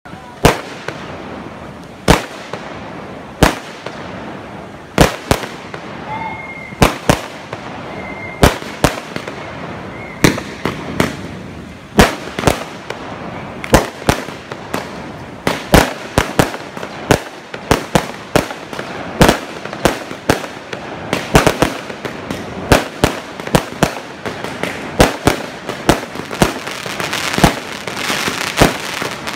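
Fireworks display: aerial shells bursting with sharp bangs, at first about one a second and then more often toward the end, where a fizzing crackle builds up between the bangs.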